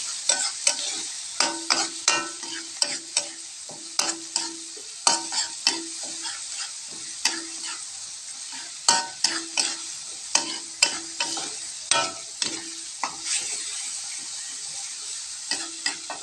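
Spatula scraping and knocking against a wok in quick, irregular stirring strokes while chili spice paste and shallots sizzle in hot oil, with a lull in the stirring near the end.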